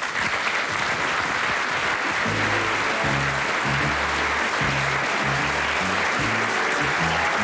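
Studio audience applauding steadily, with music whose bass line comes in about two seconds in.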